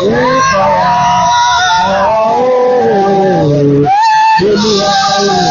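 A singer's long, sliding, wordless vocal line over band accompaniment in a worship song, with held notes bending up and down and a short break about four seconds in.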